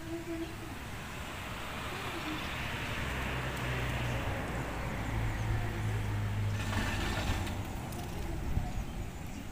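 A motor vehicle passing by: a low engine hum and road noise that swell over the first few seconds, hold, then fade toward the end.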